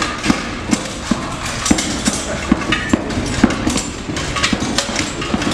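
Armoured marionettes worked on a wooden stage: a steady run of sharp knocks, two or three a second, with a thin metallic clatter from their armour as they move and clash.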